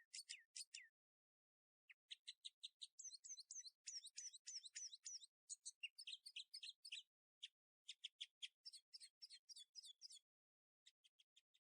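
Small birds chirping in quick runs of short, high chirps, several a second, with a pause about a second in and another near the end.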